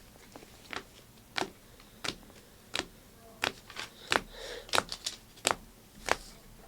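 Trading cards being handled and sorted by hand, giving about ten sharp clicks and snaps, roughly one every two-thirds of a second, with a soft rustle of card handling about halfway through.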